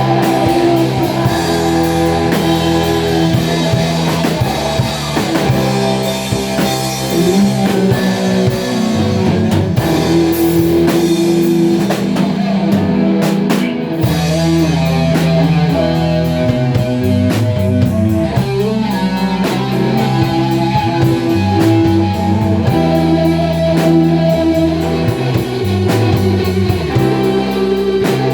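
A rock band playing: electric guitar chords over a drum kit, with bass.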